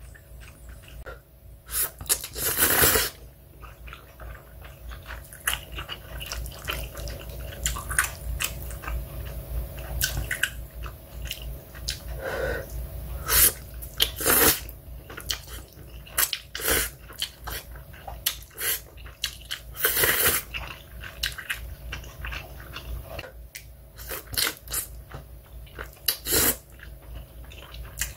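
Someone eating Chapagetti black-bean-sauce instant noodles: slurping the noodles and chewing, in short irregular bursts. A few louder, longer slurps come through, around three seconds in, midway and about twenty seconds in.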